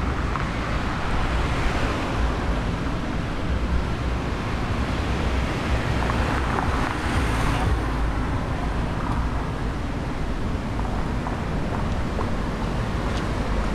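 Street traffic: cars running along the avenue with steady road noise and a low rumble. A brighter rush of noise rises about six seconds in and cuts off sharply just before eight seconds.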